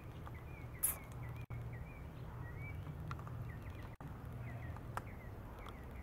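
Small birds chirping in short, repeated high notes over a low steady hum, with one brief sharp knock just under a second in.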